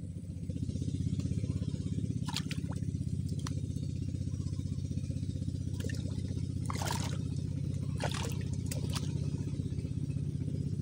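A small engine running steadily at an even pitch, with a few brief scraping noises about two, seven and eight seconds in.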